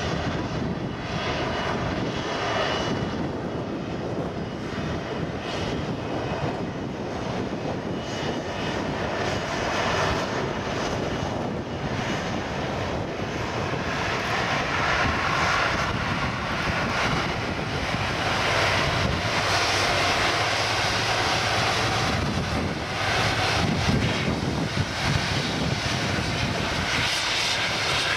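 Jet engines of an Airbus A330-200 (Rolls-Royce Trent 700 turbofans) running at taxi power as the airliner taxis past, a steady jet rumble with a whine on top. The sound grows a little louder in the second half as the aircraft comes closer.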